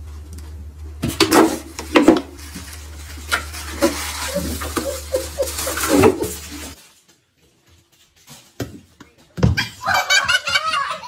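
People laughing over a steady low hum, with scattered knocks. The sound cuts out about two-thirds of the way through, then come a couple of thumps and a child giggling near the end.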